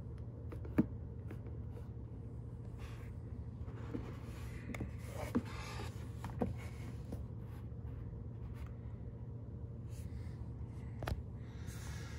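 Clicks and light scraping from handling the Beoplay H95's aluminium carry case as its lid is unlatched and swung open: a sharp click about a second in, a cluster of clicks and rubbing near the middle, and another click near the end, over a steady low hum.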